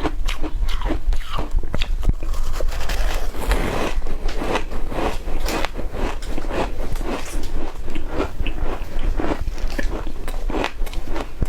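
Shaved ice being bitten and chewed close to the microphone, a steady run of crunches at about two a second.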